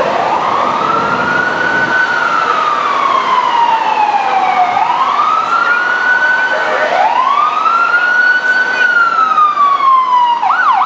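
FDNY fire truck siren wailing: the pitch climbs and falls slowly three times, then switches to a quick up-and-down yelp at the very end.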